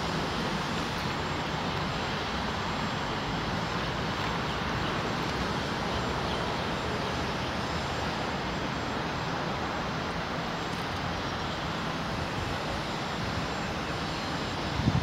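Steady outdoor background roar, an even rumble and hiss without distinct events.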